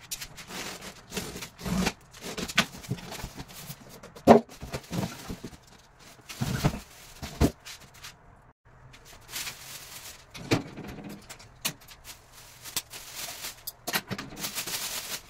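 Irregular knocks, scrapes and rustling of objects being handled, with one sharp knock about four seconds in and a short pause near the middle.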